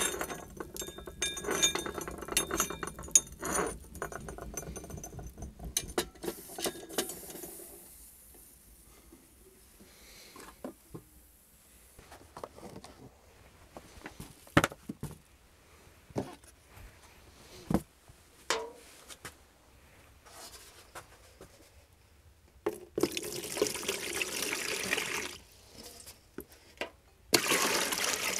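Water poured from a metal pot into a wall-mounted plastic washbasin tank, a steady rush about 23 seconds in and again louder near the end. Before that, metal pots clink and clatter at a brick stove, followed by a quiet spell broken by occasional knocks and clinks.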